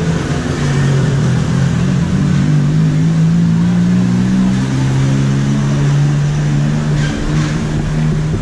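A motor vehicle engine running close by, its pitch rising and falling a little, with two short sharp sounds about seven seconds in.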